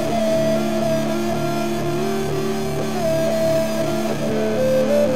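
Instrumental background music with guitar and long held notes.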